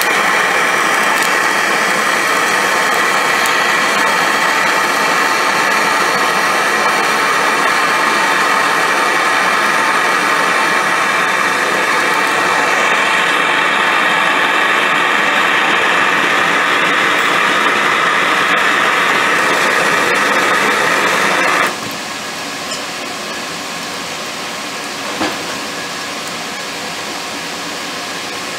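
A coal forge's air blower running loud and steady, forcing air up through the firepot, together with the hiss of a handheld gas torch lighting lump charcoal. About two-thirds of the way through the torch shuts off and the sound drops to the quieter steady blower alone, with a single knock a few seconds later.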